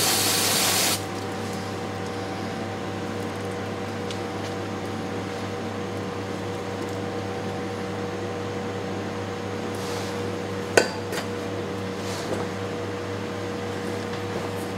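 Aerosol spray can hissing at the underside of a transmission and cutting off suddenly about a second in. After it, a steady mechanical hum, and one sharp clink about two-thirds of the way through.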